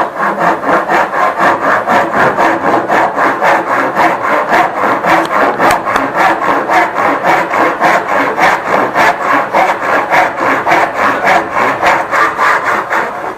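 Handsaw cutting through wood with fast, even back-and-forth strokes, about two to three a second.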